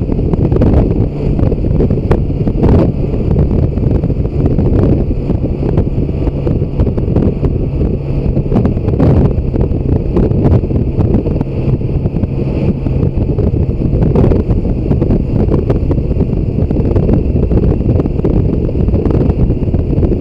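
Heavy wind buffeting on the microphone of a motorcycle cruising at speed, with the steady drone of the BMW K1600 GTL's inline-six engine and tyres underneath and a few brief louder gusts.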